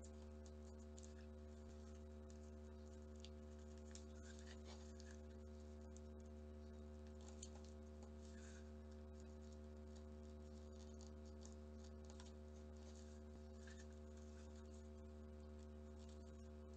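Faint rustling and creasing of origami paper as it is folded and pressed by hand, over a steady low hum.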